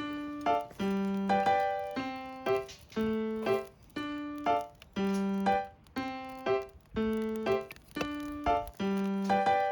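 Background piano music: a bouncy repeating pattern of low bass notes and short chords, about one beat a second.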